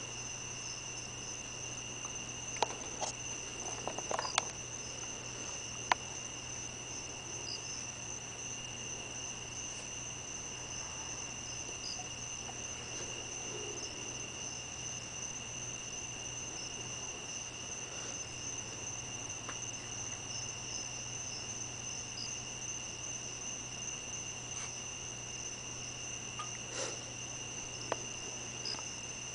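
Crickets trilling steadily at two high pitches over a low steady hum. A few sharp clicks come between about three and six seconds in, and again near the end.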